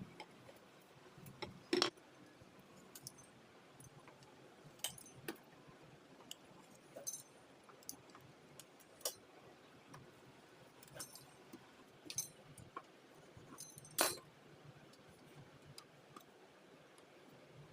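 Scattered light clicks and clinks of kitchen utensils against bowls or containers during food preparation, loudest about two seconds in and again near fourteen seconds.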